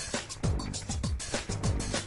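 Background music with a steady beat: sharp percussion hits and deep bass notes that slide downward about twice a second.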